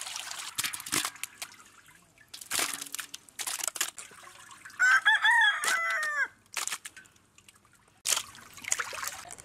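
A rooster crows once, about five seconds in, in one loud call that rises and falls. Around it, water splashes and drips as pieces of fish are washed and lifted out of a pot.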